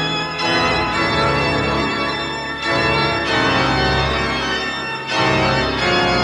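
Eerie organ music: sustained chords that change every second or two over a low bass line.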